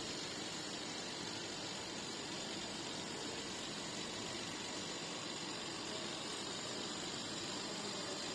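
A small electric motor running steadily with an even hiss, unchanged throughout.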